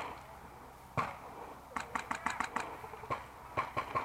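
Airsoft gun firing in sharp clicks: a single shot about a second in, then a quick string of about seven shots, then a few more scattered shots near the end.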